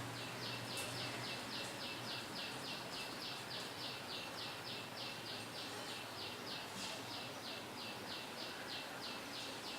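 Faint, steady high-pitched chirping from an insect, in short even pulses at about three to four a second, over a low background hiss.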